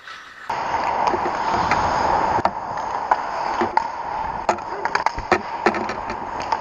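Ice hockey play on an indoor rink: skates scraping the ice over a steady rink hum, with a string of sharp clacks from sticks and puck. The sound starts abruptly about half a second in.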